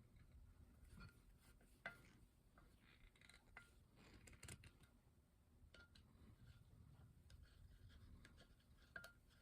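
Near silence: faint scattered clicks and light rubbing, with two slightly sharper clicks about two seconds in and near the end.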